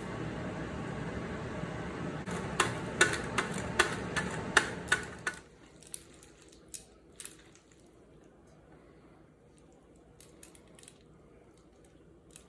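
Creamy fettuccine being tossed and squished in a pan of Alfredo sauce, with a utensil clicking sharply against the pan or dish about eight times in quick succession. About five seconds in it goes much quieter, leaving only a few light taps.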